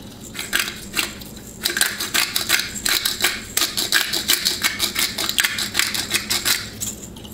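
Black pepper grinder twisted by hand, grinding peppercorns with a rapid, uneven run of clicks.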